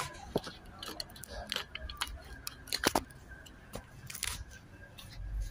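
Irregular light clicks and knocks, the sharpest a double click about three seconds in, with a short hiss about four seconds in.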